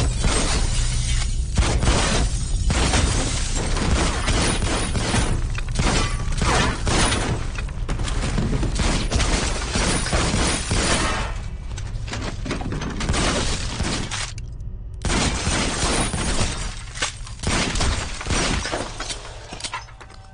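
Film shootout: rapid, repeated gunfire with bullets striking walls and furniture and glass shattering. There is a brief break in the shots about fourteen seconds in.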